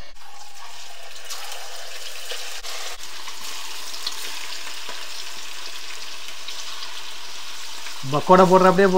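Marinated king fish pieces deep-frying in hot oil in a wok: a steady sizzling hiss, with a few faint clicks in the first three seconds. A voice comes in about eight seconds in.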